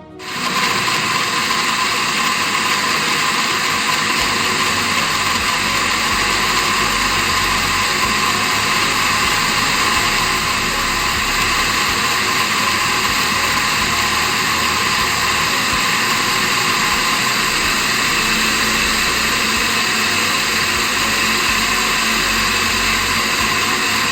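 Electric kitchen blender switched on, then running at a steady speed as it grinds whole oranges and a lemon with water into a pulp.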